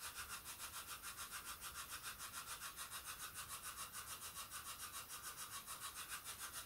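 Spirit box sweeping rapidly through radio stations: a faint hiss of static chopped into an even pulse of about six or seven beats a second.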